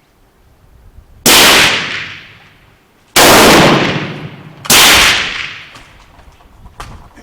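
Model 1891 Carcano cavalry carbine, a 6.5×52mm bolt-action, firing three shots about a second and a half to two seconds apart, each sharp report trailing off in a rumbling echo.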